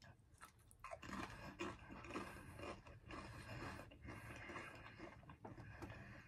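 Faint chewing of a Pringles Multigrain crisp, crunching with small irregular crackles from about a second in.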